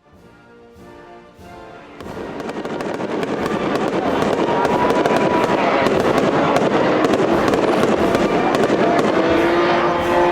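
Fireworks display: a dense crackle of rapid pops and bangs that builds up from about two seconds in and then holds steady and loud. Music with held notes is heard faintly at the start.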